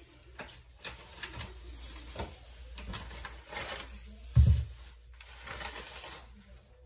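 Plastic bags and packaging rustling and crinkling as they are handled, with light knocks, and one dull low thump about four and a half seconds in.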